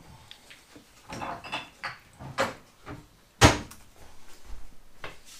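Kitchen cupboard door opening and shutting, with a few knocks and clatters of things being moved; the loudest knock comes about three and a half seconds in.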